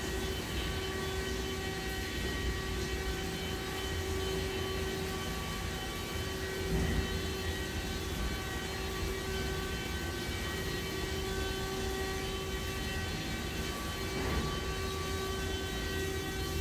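WashTec SoftCare2 Pro gantry car wash running, its rotating brushes scrubbing the car under water spray, with a steady whine of its electric motors over a low rumble.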